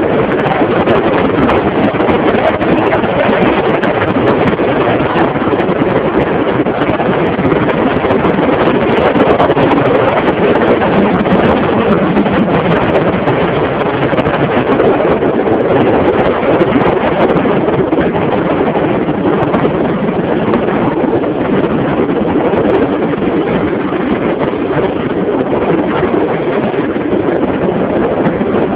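Steady rush of wind on the microphone of a phone riding on a Derbi motorcycle, with the bike's engine running underneath.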